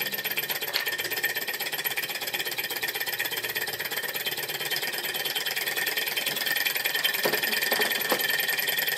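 Small brass-coloured hot-air Stirling engine running on a lamp flame, its pistons and flywheel giving a fast, steady mechanical clatter. A few soft knocks come about seven to eight seconds in.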